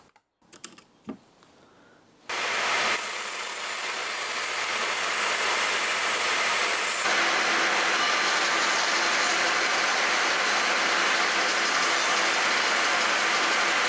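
Bandsaw running and cutting a thin piece of oak: a steady, noisy whir that starts abruptly about two seconds in, after a short quiet stretch with a few faint ticks.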